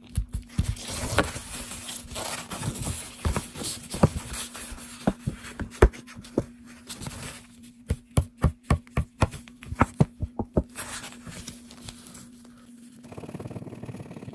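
Paper scratch-off lottery tickets handled on a wooden table: rustling and a string of sharp taps, with a quick run of about four taps a second in the middle. Near the end a plastic scratcher starts scraping the coating off a ticket.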